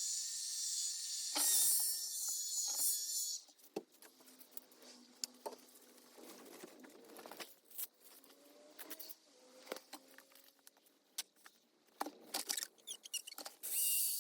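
Insects shrilling steadily outdoors, a high chorus that stops abruptly about three seconds in. After that come only faint, scattered clicks and small rattles until the chorus returns at the very end.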